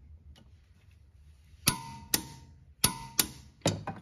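Sharp metallic clicks and clanks from a ratchet and spanner tightening a car's rear suspension through bolt. There are five of them, starting about halfway in, and two ring briefly.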